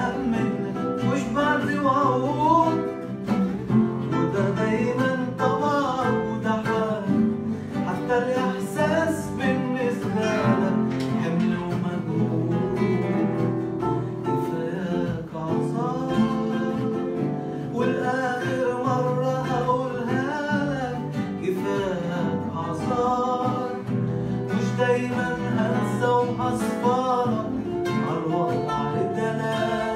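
A male voice singing an Arabic song, accompanied by several acoustic guitars plucking and strumming together.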